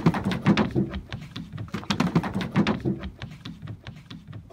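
A booted working cocker spaniel jumping up onto a car and scrabbling over its roof and windscreen: a quick run of thumps, knocks and scrapes of paws on the bodywork, busiest in the first three seconds and thinning out towards the end.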